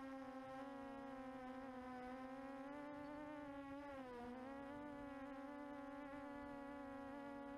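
QAV400 quadcopter's motors and propellers giving a steady buzzing whine, heard through its onboard camera. The pitch dips briefly about four seconds in and comes back up.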